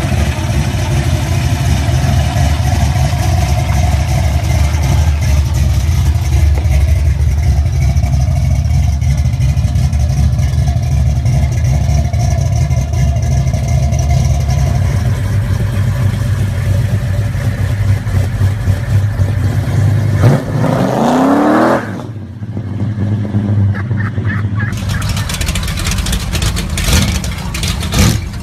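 Muscle-car engines running loud and rough, led by a classic Ford Mustang. About twenty seconds in, one engine revs with a sharply rising pitch that cuts off suddenly. Near the end another engine, a Dodge Charger's, starts to rev.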